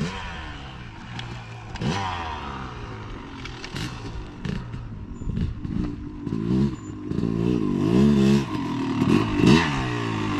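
Dirt bike engine revving up and down in repeated surges, its pitch rising and falling several times, loudest in the second half.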